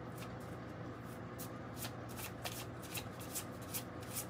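Small deck of Lenormand cards shuffled by hand: a run of quick, light card flicks, several a second at an uneven pace.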